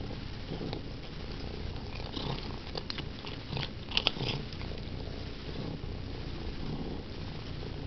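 Domestic cat purring steadily while eating, with a run of sharp chewing clicks, the loudest a pair about four seconds in.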